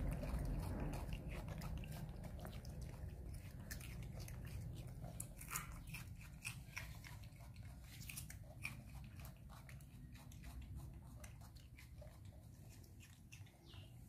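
Two baby macaques biting and chewing slices of raw cucumber: a scattered run of small crisp crunches and clicks. A low rumble underneath fades away over the first few seconds.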